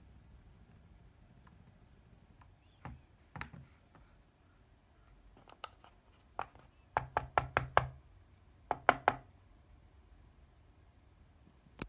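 Handling noise from an Apple EarPod earbud being moved about and held up close to the microphone: scattered light knocks and taps, with a quick run of them a little past halfway. No playback is heard from the earbud, because the laptop's headphone jack gives no sound under the Hackintosh install.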